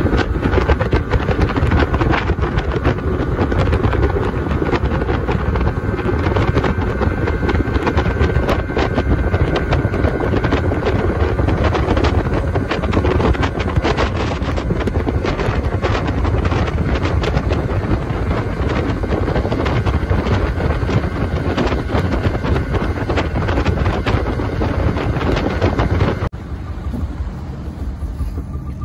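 Small speedboat running at speed, its engine noise mixed with wind buffeting the microphone. The sound drops suddenly and becomes quieter about 26 seconds in.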